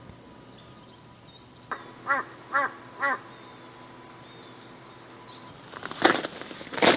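A crow cawing three times, each caw arched and about half a second apart, over faint songbird chirps. Near the end come a couple of loud crunching rustles.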